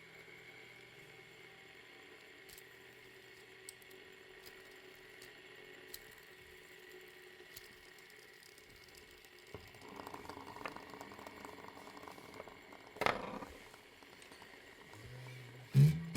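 Faint room hum with a few scattered small clicks, a stretch of soft rustling about ten seconds in, and one sharp knock a few seconds later; plucked guitar music starts right at the end.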